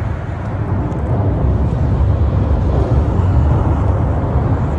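Steady, loud rumble of highway traffic passing on the overpass deck overhead, heard from underneath the bridge.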